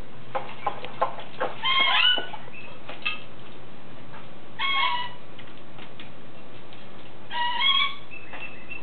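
A pet parrot giving a short pitched call three times, about three seconds apart. Splashing and wing-flapping in a bath of water make a run of sharp clicks and splatters in the first couple of seconds.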